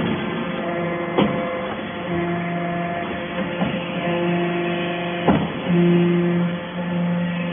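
Hydraulic scrap-metal chip baler running: a steady pitched hum that swells in stretches of about a second, with sharp clunks about a second in and again about five seconds in.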